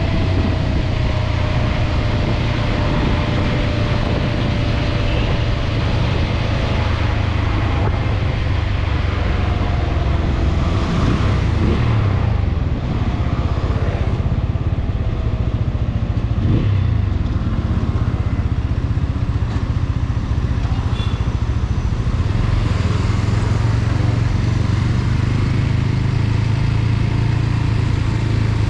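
TVS Apache RTR 200 4V's single-cylinder engine running while the motorcycle is ridden, heard onboard with road and wind noise. The engine note holds mostly steady, briefly changing pitch about eleven and sixteen seconds in.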